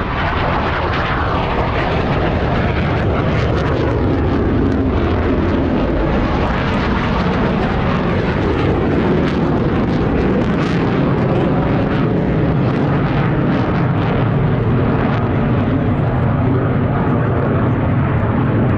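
Military jet aircraft flying over, its engine noise loud and steady, building over the first second or two.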